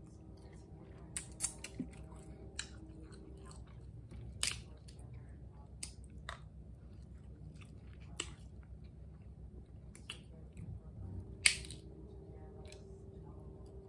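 Eating snow crab legs: chewing, with scattered sharp clicks and cracks as the shell is snapped and picked apart. The loudest crack comes about two seconds before the end.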